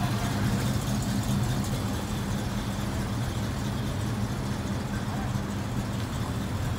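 Classic muscle-car engines idling with a steady low rumble.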